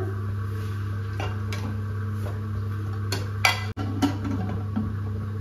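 Aluminium pressure cooker lid being fitted and closed: a few light metal clinks and knocks, the loudest about three and a half seconds in, over a steady low hum.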